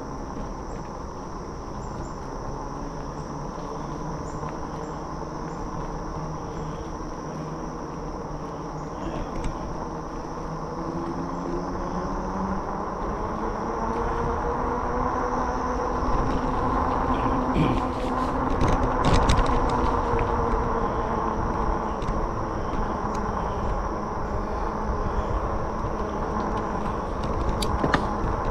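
Fat-tire electric bike riding on pavement: a steady rolling hum with a motor whine that shifts in pitch, getting louder from about ten seconds in. A steady high buzz runs through the first half, and a few sharp clicks come around the middle and near the end.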